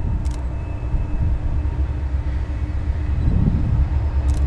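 Approaching EMD SD70 diesel locomotive (16-cylinder two-stroke EMD 710 engine) hauling an auto rack train: a steady low engine rumble with a constant hum over it, growing slightly louder toward the end.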